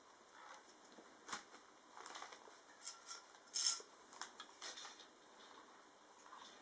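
Faint handling noise: scattered light clicks, taps and rustles as a liquid-cooler radiator and its sleeved tubing are turned over in the hands, the sharpest click about three and a half seconds in.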